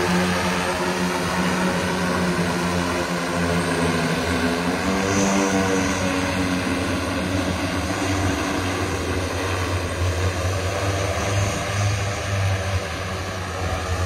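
Battery-powered Hexa one-seater multicopter's 18 propellers droning as it hovers and flies, a loud multi-tone hum whose pitch wavers a little around the middle.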